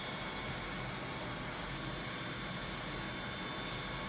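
Vacuum cleaner running steadily: an even hiss of rushing air with a steady high motor whine.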